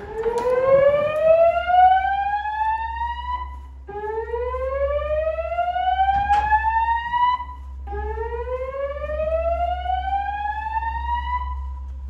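Fire alarm slow-whoop evacuation tone from System Sensor SPSR speaker-strobes: three rising sweeps, each about three and a half seconds long, sounded between the voice evacuation messages.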